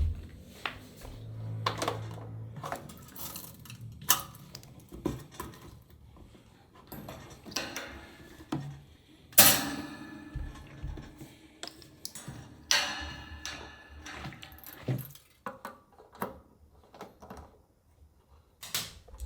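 Dishes and metal utensils being handled: scattered clinks, taps and knocks, the loudest a sharp click about nine and a half seconds in.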